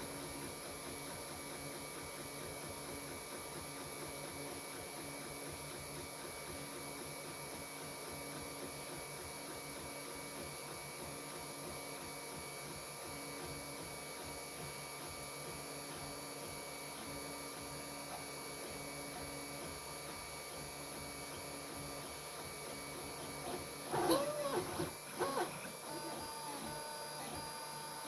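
Geeetech A10 3D printer running mid-print: a steady fan hiss under the stepper motors' thin whirring tones, with a few louder whines that rise and fall in pitch near the end.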